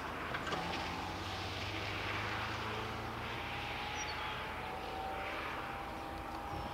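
A steady, even rumble from a large vehicle, with a low hum under it and a faint thin tone above.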